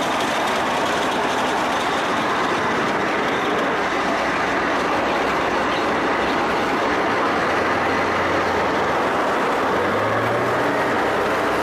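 ZSU-57-2 self-propelled anti-aircraft gun on the move: its V-54 V12 diesel running steadily under the clatter of its steel tracks, heard from on top of the vehicle. A low engine note comes up more clearly near the end.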